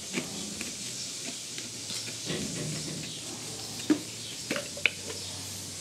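Quiet rubbing of CPVC adhesive being spread onto a pipe end, with a few light clicks about four to five seconds in.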